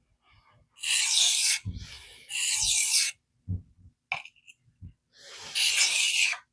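Steel knife edge scraped across a vitrified diamond sharpening stone: three rasping sharpening strokes, with a few low knocks and a click between them.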